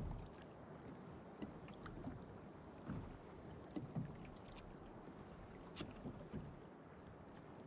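Sea water lapping and slapping against a fishing kayak's hull, with a steady wash of sea noise and scattered light knocks and clicks.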